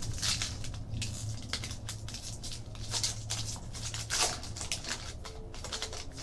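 Baseball trading cards and their foil pack wrapper being handled: an irregular run of crinkling, rustling and sliding card scrapes as the next pack is opened.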